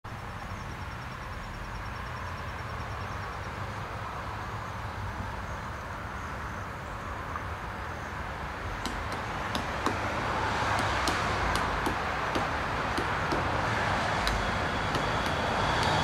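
Pileated woodpecker pecking at a black walnut limb: from about nine seconds in, sharp, irregular taps come roughly two a second. Under them runs a steady rumble of road traffic, which grows louder about ten seconds in.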